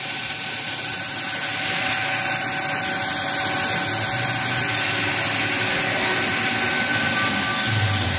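Doosan Puma 700XLY CNC lathe running with coolant spraying inside its enclosure: a steady hiss with a steady whine on top.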